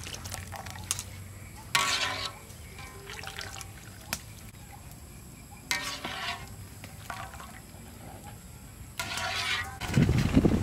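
Water streaming and dripping from a wire-mesh strainer as sliced vegetables are lifted out of hot water in a large metal wok. Near the end comes a louder, low splash in the wok's water.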